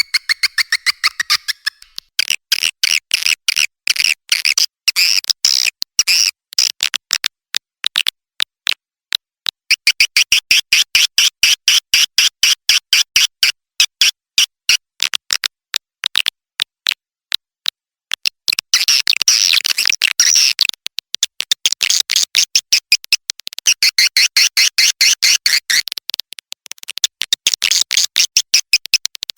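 Swiftlet call recording used as a lure for swiftlet nesting houses: rapid trains of sharp clicks with long spells of fast, high-pitched twittering chirps, which stop twice for a few seconds, leaving only the clicks.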